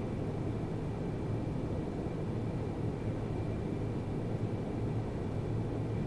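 Steady low hum and hiss of room background noise, with a faint thin high tone running through it.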